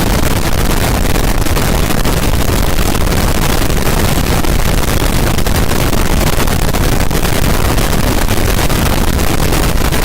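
A loud, steady rushing noise that cuts in abruptly and holds level.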